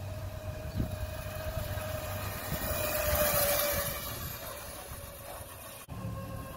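A child's mini motorbike riding along a concrete sidewalk: a steady motor whine over tyre rumble, swelling loudest as it passes close to the microphone about three seconds in. The sound cuts out for an instant near the end.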